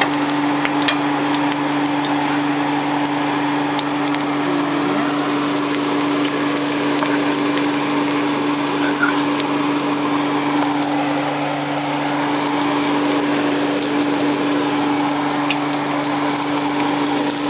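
Battered shrimp deep-frying in hot oil in a cast iron skillet: a steady sizzle with scattered small pops and crackles, over a constant low hum.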